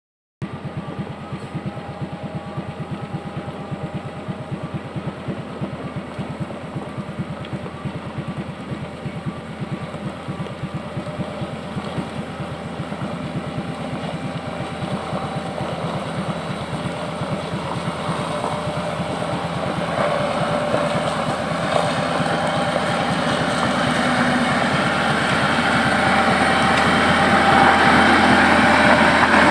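Komatsu GD511A motor grader's diesel engine running with a steady, fast low throb, growing steadily louder over the second half.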